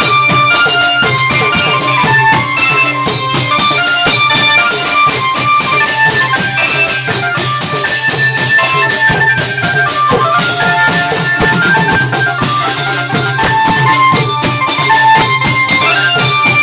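Thai klong yao long-drum ensemble playing traditional music: a steady drum beat with bright cymbal clashes and a busy melody line of short notes above.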